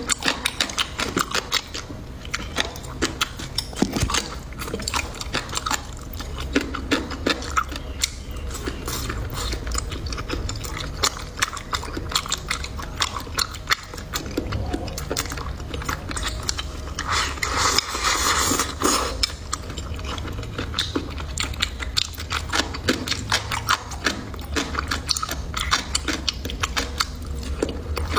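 A person chewing and biting crisp food close to the microphone: many quick crunches and small clicks, with a louder noisy stretch a little past the middle.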